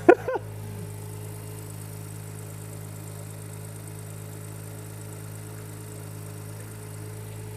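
BMW M140i's 3.0-litre turbocharged straight-six idling steadily on its first run after repair, with the electric radiator fan running as the cooling system draws in coolant.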